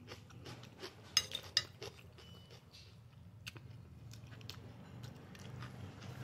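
Close-up chewing and mouth sounds of a person eating, with short clinks of a metal fork against a plate, the loudest a little over a second in. A faint low hum runs underneath.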